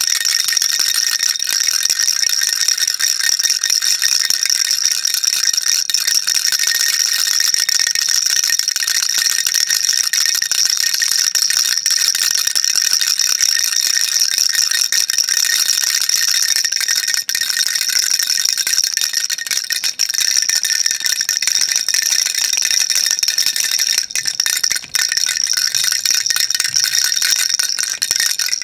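Baby rattle shaken continuously, a dense, steady high-pitched rattling of small beads inside a toy rattle.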